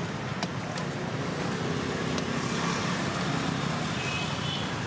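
Steady road traffic rumbling past, with a few faint clicks over it.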